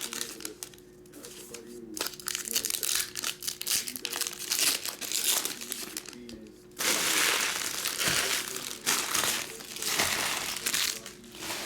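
Trading-card pack wrappers crinkling and crackling as packs of 2022 Topps Heritage Wrestling cards are handled and opened. The crinkling is irregular, with a louder, denser stretch about seven seconds in.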